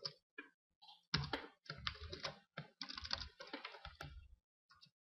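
Computer keyboard typing: a few single keystrokes, then a quick run of keystrokes for about three seconds that stops shortly before the end.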